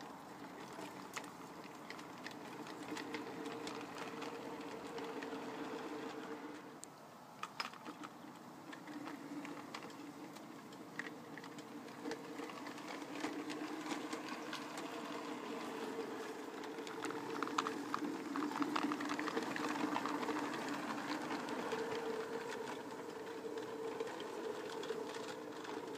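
Small electric model locomotive running along garden track: a steady motor-and-gearbox hum with light clicks, growing louder in the second half as it comes nearer.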